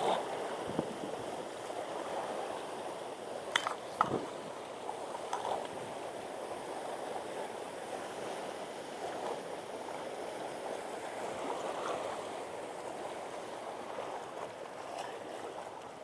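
Steady wash of water, with two sharp clicks about three and a half and four seconds in.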